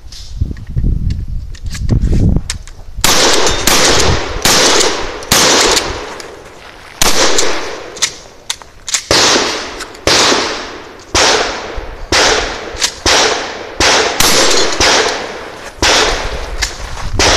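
Mossberg 590A1 12-gauge pump-action shotgun firing a rapid string of about a dozen shots, roughly one a second, each with a short echo, starting about three seconds in.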